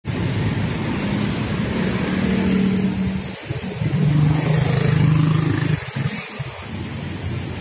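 Road traffic: motor vehicle engines running with a steady low hum that drops a little in pitch about halfway through.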